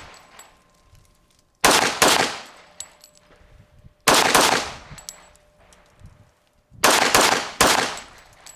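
Glock 21 .45 ACP pistol being fired in a steady string: about five sharp shots, a quick pair, a single, then another pair, each ringing away over the next second.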